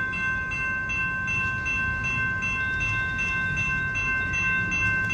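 BNSF manifest freight train's boxcars rolling slowly past: a steady low rumble with several steady high-pitched tones, like a squeal, held over it.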